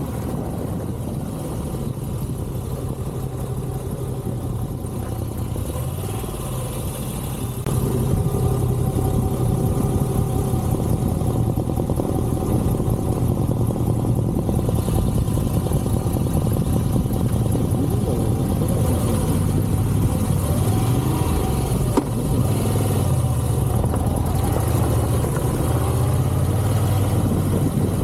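Twin-cylinder adventure motorcycle engine running under way, its revs rising and falling. It gets louder about a quarter of the way in.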